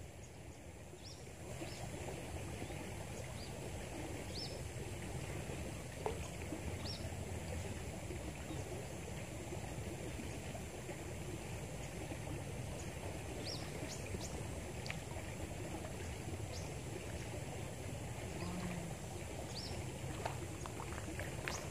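Steady rush of river water flowing over stones, with short high chirps now and then and a single sharp click about six seconds in.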